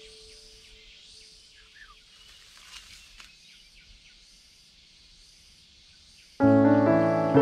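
Faint outdoor ambience with a soft pulsing high hiss and a couple of faint short chirps, after a held music note dies away at the start; near the end, background piano music comes in abruptly and loudly.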